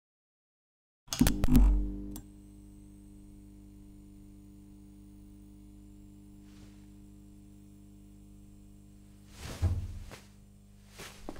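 A loud clunk about a second in as banks of overhead fluorescent tube lights switch on, followed by their steady electrical hum with a faint high whine. Near the end comes a dull thump with a brushing noise.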